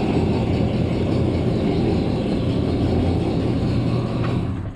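A steady, loud low mechanical rumble with a hum, like a running engine, cutting off abruptly near the end.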